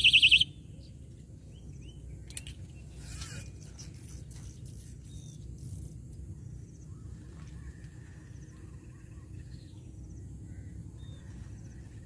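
An electronic fishing bite alarm beeps rapidly and cuts off suddenly about half a second in, signalling a bite on one of the set rods. After it there is a steady low wind rumble, small birds chirping here and there, and a few faint clicks two to three seconds in.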